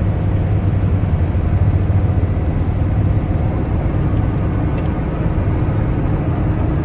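Steady in-cab drone of a GAZelle Next's Cummins 2.8 four-cylinder turbodiesel and road noise while driving.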